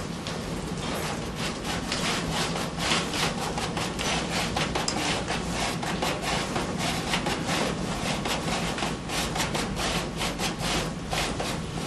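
Shoji paper being rubbed and brushed down by hand onto the ribs of an Akari paper lamp shade on its wooden form: quick, repeated scratchy strokes.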